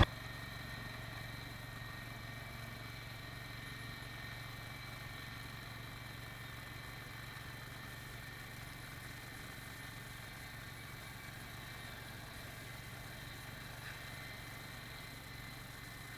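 Lawn tractor engine idling steadily, heard faintly, with a constant low hum.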